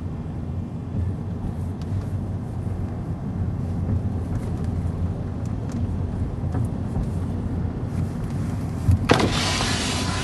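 Car moving slowly, heard from inside the cabin as a steady low road-and-engine rumble. About nine seconds in, a loud rushing hiss of outside air and wind noise starts abruptly.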